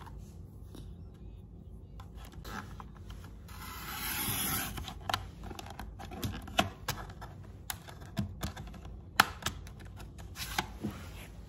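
Hands handling and rubbing a sheet of printed paper labels on a desk. A longer papery swish comes about four seconds in, then scattered sharp taps and clicks, the loudest about halfway through.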